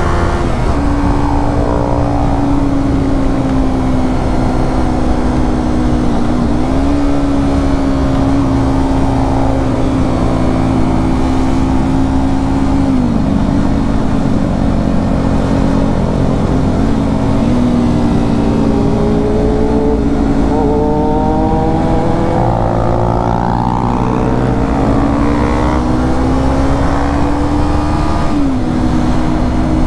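Yamaha R25's parallel-twin engine through a Proliner TR1R slip-on exhaust, running at a steady, fairly high pitch, with brief pitch changes every few seconds.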